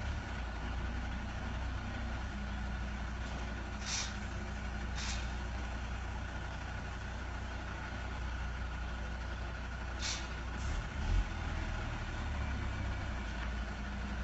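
Heavy diesel engine running steadily at low revs, with short sharp hisses: two about a second apart near a third of the way in, another about two-thirds through, and a brief low bump just after.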